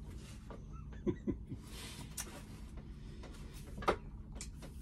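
Quiet small-room tone with a steady low hum. There are a couple of faint short sounds about a second in and one light click near the end.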